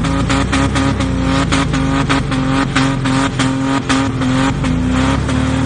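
Off-road vehicle engine revving under load, its pitch dropping about a second in and climbing again near the end.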